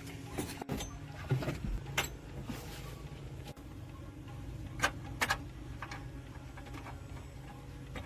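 Several sharp clicks and knocks, a few seconds apart, over a steady low hum.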